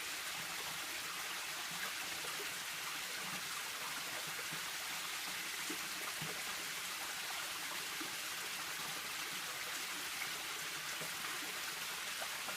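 Steady rush and splash of a small canyon waterfall.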